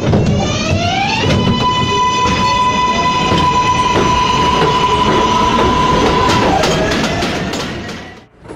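New York City subway 7 train pulling out of a station after its doors close. Its motor whine rises in pitch for about a second, then holds one steady high tone while the wheels clatter over rail joints. Near the end the tone drops and the sound fades out.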